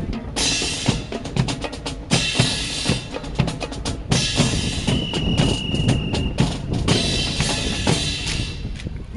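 A fast, dense run of sharp percussive knocks and taps from an honor guard's drill performance, broken by several short bursts of hissing noise. A steady high tone sounds for about a second midway.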